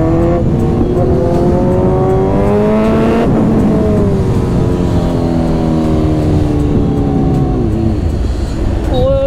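Kawasaki Z900 inline-four revving up under hard acceleration for about three seconds, then the pitch falls slowly as the throttle is rolled off and the bike slows.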